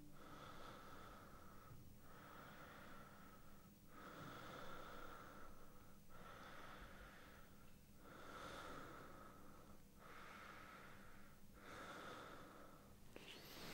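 Faint, slow breathing of a man lying in bed, each breath in or out lasting about two seconds with a short pause between.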